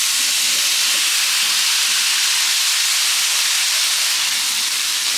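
Sliced raw potatoes frying in melted butter on a hot electric griddle plate, a steady, loud sizzle.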